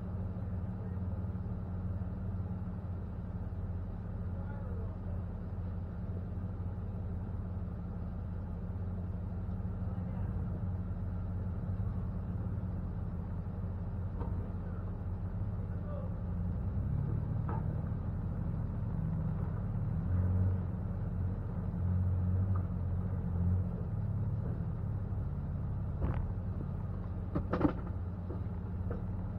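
Jeep engine idling with a steady low hum, swelling louder for several seconds past the middle as the Jeep ahead crawls up the rock ledge. A couple of sharp knocks near the end.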